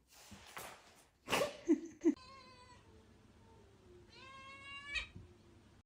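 Domestic cat meowing twice: a short wavering meow, then a longer one that rises in pitch. Before them come a few scuffs and knocks.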